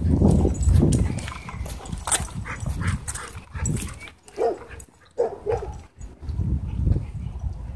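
Dogs at play, giving a few short, high barks about four and a half and five and a half seconds in. A low rumble is loudest in the first second.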